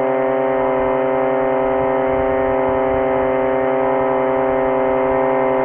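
A steady machine hum made of several held tones, unchanging in pitch and level.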